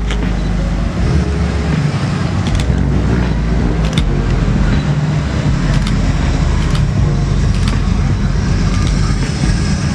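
Car engine running steadily.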